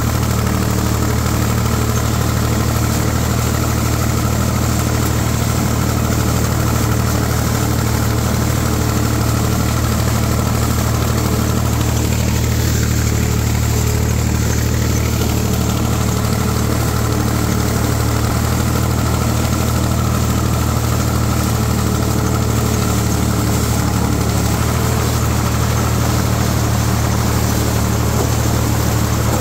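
IMT 549 DV tractor's four-cylinder diesel engine running steadily under load, driving a SIP Tornado 80 corn picker through standing corn, with the picker's machinery running in the mix. Heard from the tractor's seat.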